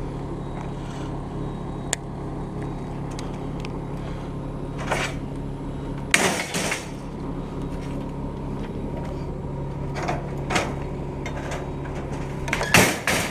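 An engine idling steadily with a low hum, with a few short metal clanks and rattles of scrap being handled on a trailer, the loudest a pair about six seconds in and a cluster near the end.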